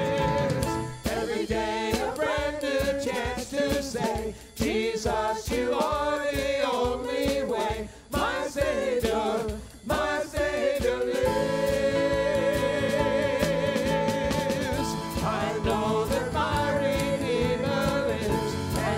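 Worship band and singers performing a contemporary praise song, voices over instruments with a steady beat.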